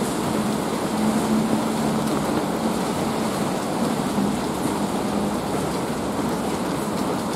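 Steady rain falling in a city, an even hiss of drops on hard surfaces, with a faint low hum that comes and goes underneath.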